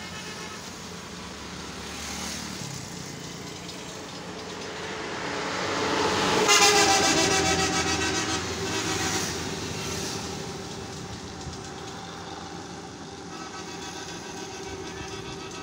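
A road vehicle passes close by, growing louder to a peak about six and a half seconds in and then fading, with a horn sounding as it goes by.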